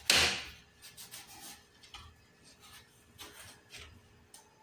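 Kitchen knife cutting open a green papaya on a cutting board: a sharp knock right at the start, then quieter scraping and light taps as the blade works through the fruit.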